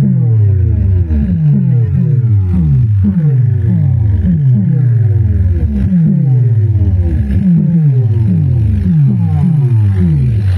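Bass effect played through a DJ sound box of large speaker stacks and horn speakers: a steady, loud run of falling bass sweeps, roughly two a second.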